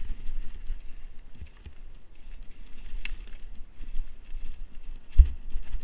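Mountain bike rolling down a leaf-covered forest trail, with tyres crunching over dry leaves and twigs, the bike rattling over bumps, and a low rumble throughout. A single sharp thump comes about five seconds in.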